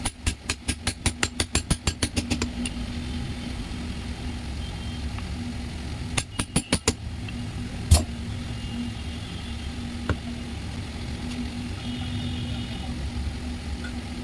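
Rapid run of sharp taps, about eight a second for some two seconds, then a shorter run about six seconds in and a single louder knock about eight seconds in, from work on an alternator after its broken bearing has been removed. A steady low hum runs underneath.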